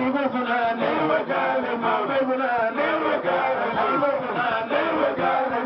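Men chanting devotional verses together, a lead voice on a microphone with other male voices joining in, in a steady unbroken flow.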